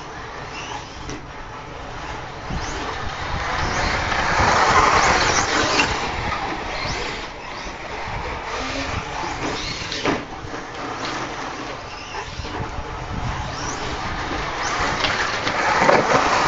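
Two 1/8-scale RC buggies, a Team Associated RC8.2 and an OFNA Jammin running a brushless Traxxas motor, racing on a dirt track: motors and tyres on dirt, loudest as the cars pass close about four seconds in and again near the end, with a sharp knock about ten seconds in.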